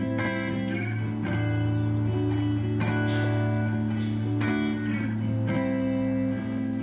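Background music led by guitar, with plucked chords changing every second or so over a steady level.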